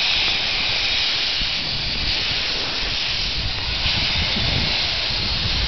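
Steam locomotive Garratt K1 blowing off steam from its open cylinder drain cocks in a loud, steady hiss.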